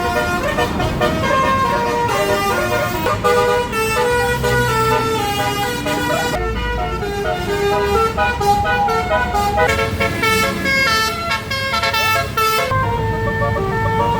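A tour bus's Basuri telolet multi-note horn playing a quick melody, note stepping to note, over the low running of the bus engine. Near the end it settles on a longer held note as the engine rumble grows.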